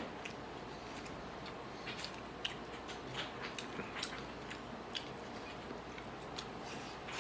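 Close-up eating sounds of a man chewing grilled chicken and picking at it with his fingers: faint, irregular small wet clicks and smacks, a few a second, with one sharper click about two and a half seconds in.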